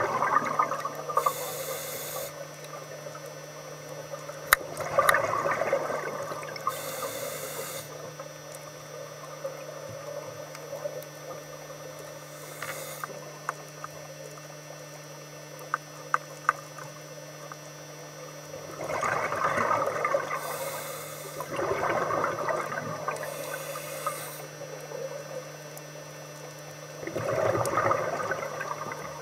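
Scuba diver breathing through a regulator underwater: a short high hiss as each breath is drawn through the demand valve, then a rush of bubbling exhaust as it is breathed out, about five breaths. A steady low hum runs underneath, with a few small clicks.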